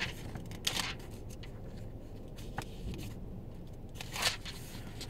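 Faint, brief rustling of something being handled, about a second in and again near the end, with a small click in between.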